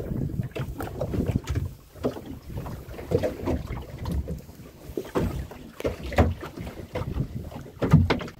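Wind buffeting the microphone on a small fishing boat at sea, with uneven knocks and thumps of the boat.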